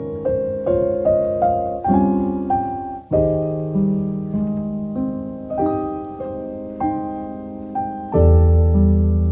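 Solo piano music: struck chords and notes ringing and fading one after another, with a deep bass chord coming in near the end.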